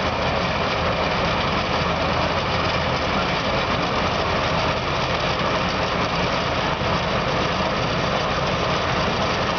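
Tracked cold milling machine running steadily, its diesel engine and milling drum grinding through the ground in one continuous, unbroken noise.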